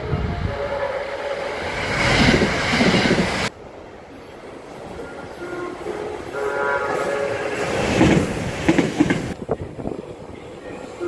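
JR West 681-series limited express trains passing with wheel-on-rail noise, in edited clips that cut off abruptly about a third of the way through. About two-thirds through, the train's electronic music horn plays a short stepped melody.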